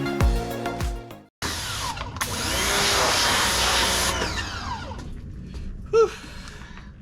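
Background music ends about a second in; then a pressure washer's spray starts suddenly, an even hiss that is loudest for about three seconds and then fades. A short squeak sounds near the end.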